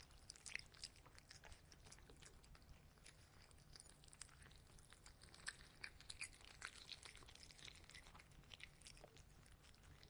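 Black cat eating from a plastic bowl: faint chewing, with a quiet, irregular run of small clicks.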